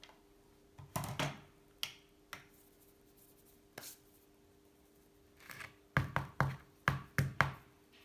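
Hands handling small metal parts and tools on a workbench: scattered light knocks and clicks, then a quick run of about six knocks near the end.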